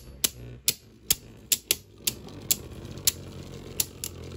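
Two Beyblade Burst DB spinning tops clashing in a plastic stadium: about ten sharp plastic-and-metal clacks at irregular intervals, roughly two a second, over a low steady spinning hum.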